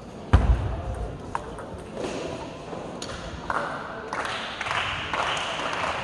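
A loud thud about a third of a second in and a light tick a second later. Then spectators' applause and voices build up from about three and a half seconds in, growing louder.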